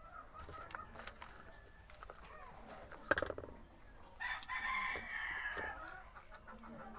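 A rooster crowing once, about four seconds in and lasting over a second, with a sharp knock a second before it.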